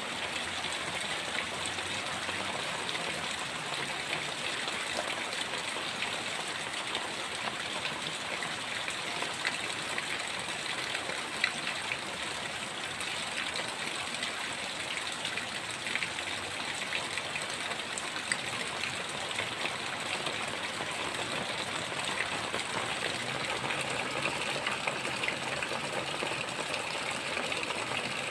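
Heavy rain falling steadily, with a few sharp drop taps standing out here and there.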